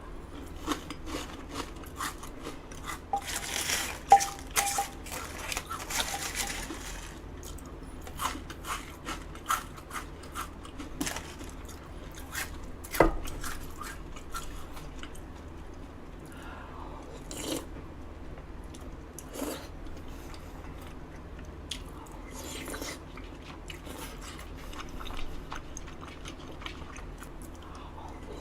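Close-miked eating: a person chewing and biting food, with scattered crunches and small clicks, and a longer hissing, rustling stretch about three to seven seconds in.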